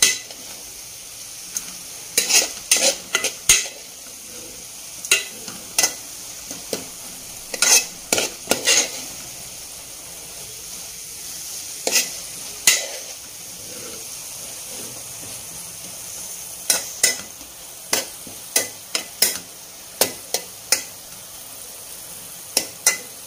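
A steel spoon stirring cabbage thoran in a stainless steel pan, scraping and clinking against the metal in irregular clusters of sharp strokes, over a faint steady sizzle of the cabbage and grated coconut cooking.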